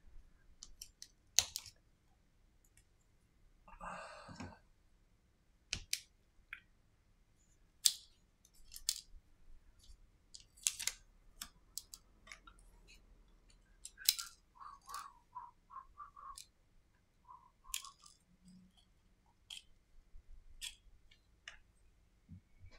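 Scattered small clicks and taps of phone parts and tools being handled on a silicone repair mat, with a brief rustle about four seconds in and a quick run of short ticks a little past halfway.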